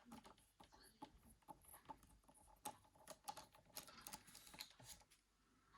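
Faint, irregular small clicks and ticks of a phone's plastic housing and small tools being handled during disassembly.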